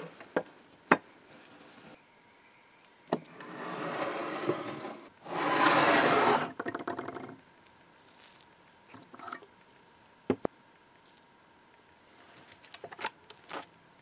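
Antique metal mortise lock parts being handled and set down on a wooden workbench: scattered sharp clicks and knocks of metal on wood, with two longer stretches of noise in the middle, the second louder, and a run of small clicks near the end.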